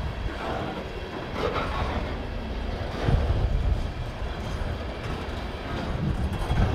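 Covered hopper cars of a freight train rolling past: a steady low rumble of steel wheels on the rail, getting louder about three seconds in and again near the end.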